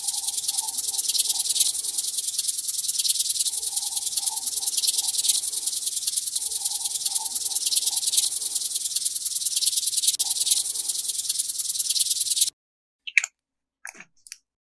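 Slime being squished and worked by hand, giving a dense, fast crackling that stops abruptly near the end, followed by a few light clicks. A faint recurring tone sits underneath.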